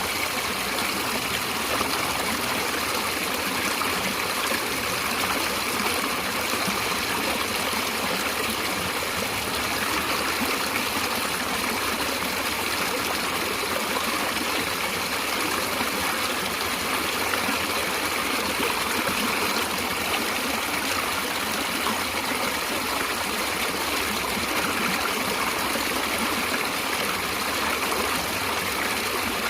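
Stream water running and trickling, a steady, even rush of flowing water.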